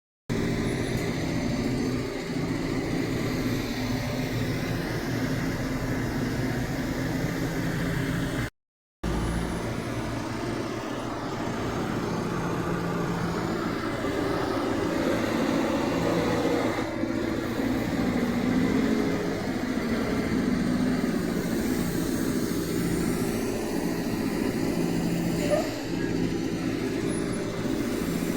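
Semi trucks' diesel engines running with traffic, a steady low hum with no clear horn blast. It drops out briefly about nine seconds in.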